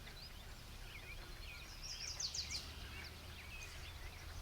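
Faint birdsong: scattered chirps from several birds, with a quick trill of high notes about two seconds in, over a low steady background rumble.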